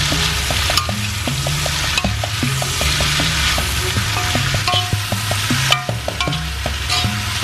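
Sliced onions, carrots and red pepper sizzling in a cast-iron skillet as a spatula stirs them, the sizzle dipping briefly near the end.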